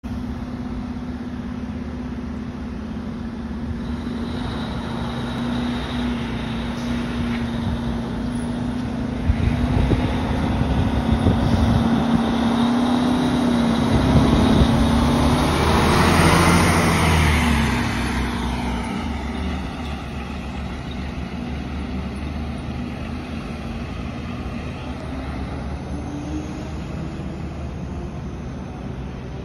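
Pierce fire engine pulling out of the station and driving past, its engine growing louder to a peak about halfway through, then fading as it moves off with a falling pitch.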